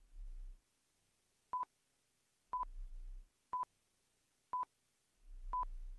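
Quiz countdown timer ticking off the seconds with short electronic beeps on one pitch: five beeps, one a second, starting about a second and a half in.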